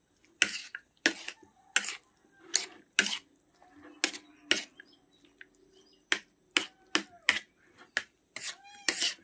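Metal spoon clinking and scraping against a plate while mixing sliced sponge gourd: a string of sharp, irregular clicks, one or two a second.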